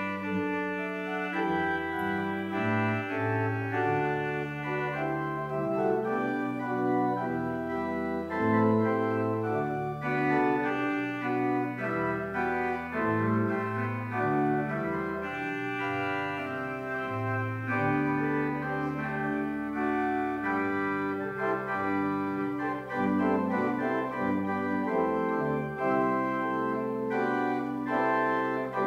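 Church organ playing a slow prelude of held chords that shift every second or two.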